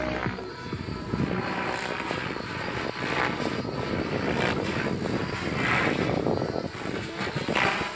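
Radio-controlled model helicopter flying aerobatics. Its rotor and motor run with a swishing sound that swells and fades several times as it manoeuvres.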